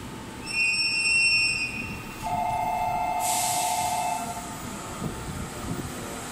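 EF64 electric locomotive approaching and sounding its warning: a high whistle blast of about a second, then a lower two-note horn held for about two seconds, over the low rumble of the oncoming freight train.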